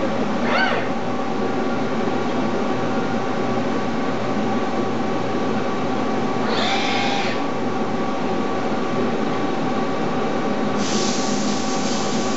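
A Fanuc R2000 robot and HAAS CNC lathe in a machine-tending cell run with a steady machine hum carrying several held tones. A short rising whine comes about half a second in and a brief whining burst about seven seconds in. A steady hiss starts a little over a second before the end.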